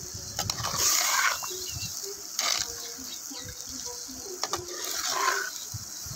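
A steel spatula stirring and scraping spiced chicken pieces around a clay pot, with louder scrapes about a second in, at two and a half seconds and around five seconds, over the steady sizzle of the chicken frying in oil.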